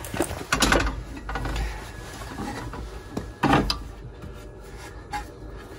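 Metal swivel-seat base plate being shifted and set down on the seat console: knocks and scrapes of metal on metal, a cluster in the first second and the loudest knock about three and a half seconds in.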